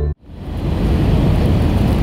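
Cabin noise of an Airbus A320 on final approach to landing: a steady, deep rumble of engines and rushing air that swells in quickly right at the start.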